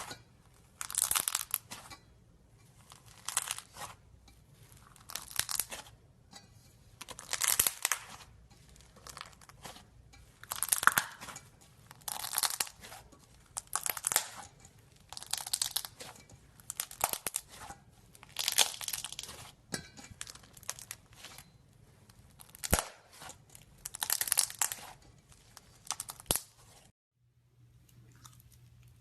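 Slime being squeezed and pressed by hand, giving short bursts of sticky popping and crackling noise, one every second or two, with a couple of sharp clicks and a brief pause near the end.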